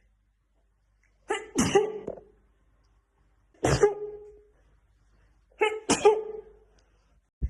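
A woman sneezing three times in a row, about two seconds apart, each a voiced sneeze with a sharp hissing burst. A short low thump comes near the end.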